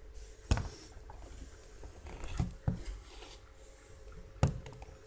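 A few brief soft clicks and knocks of handling, about half a second in, twice around two and a half seconds, and once near the end, over a faint steady hum in a quiet room.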